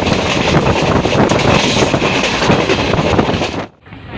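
Express train running on the rails, with a dense rush of noise and the wheels clattering over the track. It cuts off suddenly about three and a half seconds in.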